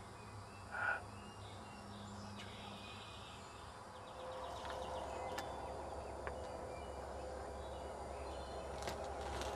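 Woodland ambience of songbirds chirping and trilling faintly, with one short, louder call about a second in. From about four seconds in, a steady rustle with occasional sharp snaps, like footsteps and twigs on forest leaf litter.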